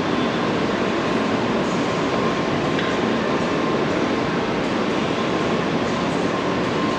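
Escalator running steadily while being ridden up: a continuous mechanical rumble and hiss with a faint steady whine, with no pauses or knocks.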